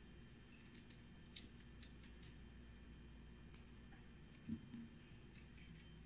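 Faint, crisp clicks of a small kitchen knife cutting through raw chayote squash held in the hand, with a soft thud about four and a half seconds in as a cut piece drops onto the cutting board.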